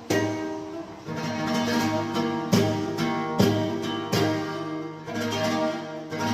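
Flamenco guitar playing a seguiriya: strummed chords struck about once a second, each ringing out and fading before the next.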